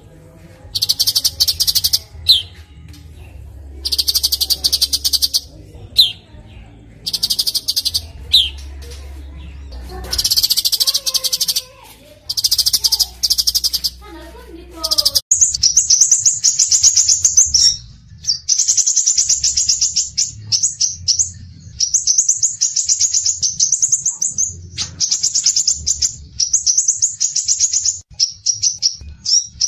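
Recorded songbird song: short bursts of fast, high-pitched chattering trills with brief pauses, then about halfway through a change to a different, near-continuous rapid high trilling song.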